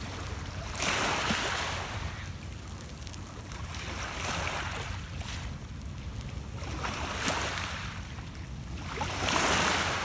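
Small lake waves washing in over a pebble beach, four swells of rushing water a few seconds apart.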